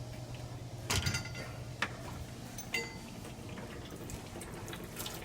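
A few sharp metallic clinks and taps, ringing briefly, as the water heater's valves and hose fittings are handled, over a low steady hum.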